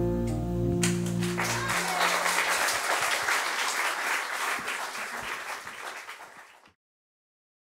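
The song's last chord rings out and dies away while, about a second in, audience applause starts up. The clapping fades and cuts off abruptly near the end.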